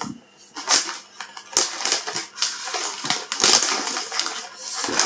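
Foil crisp bag of Lorenz Naturals being handled after opening: a run of irregular crinkling and crackling, with short pauses between the bursts.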